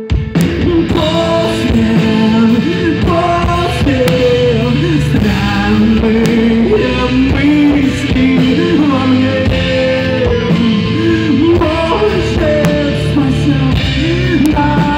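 Live rock band playing a passage without lyrics: a steady band accompaniment under a wavering melodic lead line.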